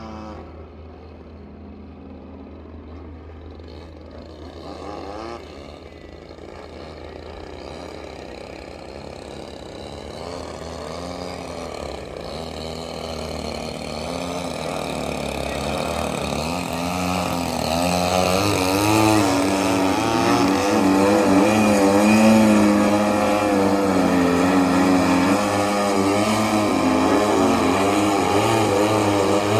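Two radio-controlled aerobatic planes' 35cc gas engines running in the air, their pitch wavering up and down with throttle and manoeuvres. They grow steadily louder as the pair comes in low and close in the second half.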